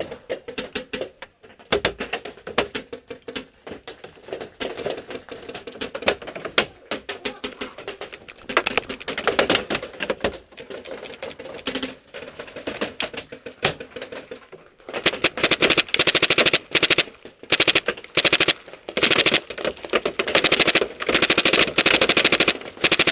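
RAP4 M60 paintball machine gun firing: scattered shots and short bursts at first, then long rapid bursts of fast, even pops from about fifteen seconds in.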